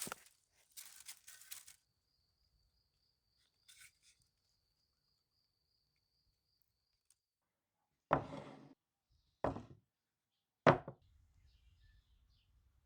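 Three heavy knocks about a second and a half apart, the first dragging on briefly. A faint, thin, high steady tone sounds for several seconds before them.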